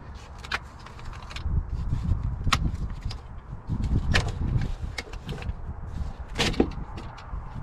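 Hands working on a tractor's air filter canister: a series of sharp plastic and metal clicks and knocks as the canister's latches and cap are handled, over a low rumble.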